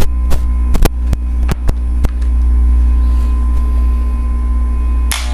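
Wahl Magic Clip hair clipper, opened up, running on mains power with a loud steady hum. It keeps running without cutting out while it is handled after its worn switch pin was turned to cure a bad contact. Several sharp clicks sound in the first two seconds, and there is a brief rustle near the end.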